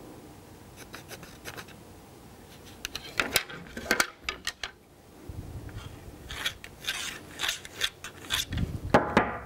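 A plastic layout template and a pencil scraping and rubbing against the shell of a bowling ball as the ball is measured and marked: short scrapes and light clicks, sparse at first and busier from about three seconds in, with a dull knock near the end.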